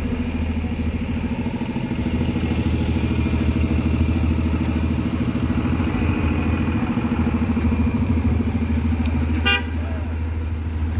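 2006 Orion VII hybrid-electric city bus pulling away and driving off, its diesel engine running steadily. A short horn toot sounds near the end.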